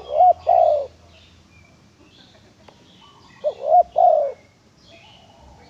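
Female spotted dove cooing: two phrases about three and a half seconds apart, each a short note, a rising-and-falling note and a longer falling note. Faint chirps of other small birds sound behind.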